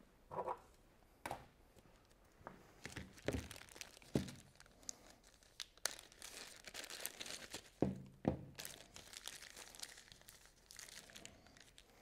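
Clear plastic bag crinkling as it is opened and handled to get at small brass pipe fittings for an oil pressure test gauge, with a few sharp light knocks in between.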